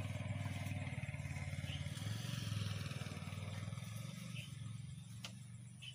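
A low, steady engine hum with a rapid pulse, easing off slightly over the last couple of seconds, with a faint click about five seconds in.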